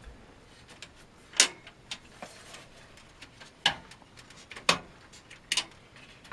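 Front cover of a PC case being pried off, its plastic clips letting go in a series of sharp clicks and knocks, about five in all, the loudest about a second and a half in.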